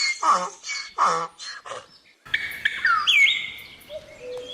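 A donkey braying, a run of rhythmic cries about one every three-quarters of a second, which stops about two seconds in. After a short gap, a bird gives whistled calls that slide up and down in pitch.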